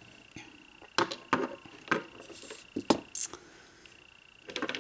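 A few light clicks and knocks of nail polish bottles being picked up and set down on a table, spread over a couple of seconds, over a faint steady high-pitched whine.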